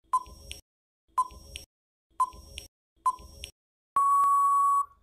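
Countdown timer sound effect: four short beeps about a second apart, each with a faint tick, then a longer steady beep about four seconds in as the time runs out.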